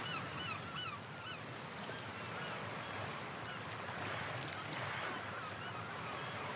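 Shower spray hissing steadily while a wet dog gives short high whines, several quick squeaky calls in a row near the start and a few more later.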